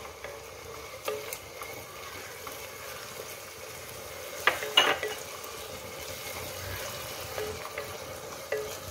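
Chopped vegetables sizzling in a frying pan while a wooden spatula stirs and scrapes through them, with scattered small clicks. About halfway through, the spatula knocks sharply against the pan twice in quick succession.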